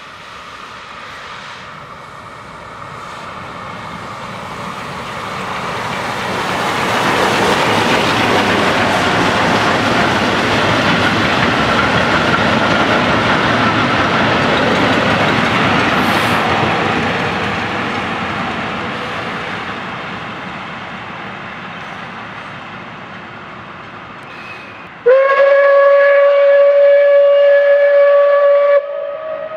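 A steam locomotive and its train of old passenger carriages pass by, the running noise swelling to a peak and then fading away. Near the end the locomotive's steam whistle blows one long steady note for about four seconds.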